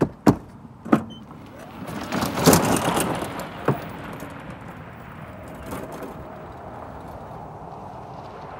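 Golf cart being drifted past on gravel: a few sharp knocks in the first second, then a loud rush of sliding tyres and scattering gravel that peaks about two and a half seconds in. After that comes a steadier, quieter sound as the cart drives on.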